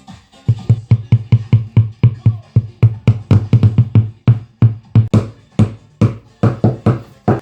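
Hammer blows on metal, about four a second in uneven runs with short pauses, typical of driving a bearing out of or into a washing machine tub.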